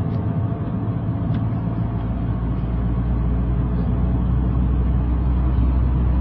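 Steady low rumble of a car in motion, with road and engine noise, growing slightly louder about halfway through.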